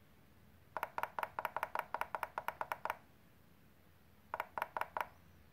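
Jumper T12 radio transmitter beeping rapidly, a short pitched beep about eight times a second as a key is held to step the frequency-tune value down. There is a run of about two seconds, a pause, then a shorter run of about six beeps near the end.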